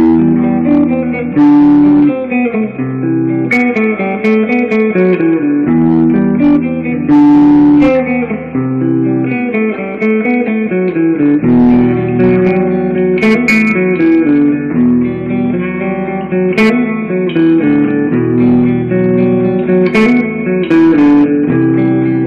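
Epiphone Flying V electric guitar played through a Marshall amp, running through heavy metal riffs with sharply picked notes and chords that change continuously.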